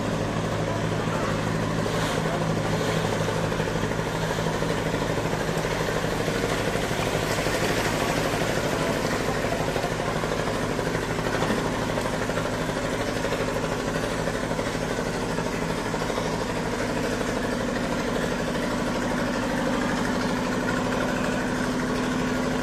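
A wooden river cargo boat's engine running steadily as the boat moves along, a constant low drone.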